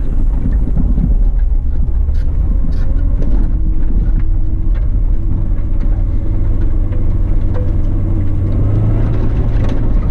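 A 2006 Suzuki Grand Vitara 2.0's four-cylinder engine running under steady load as the SUV drives over a rough dirt track, with a few sharp knocks from the car going over the ground.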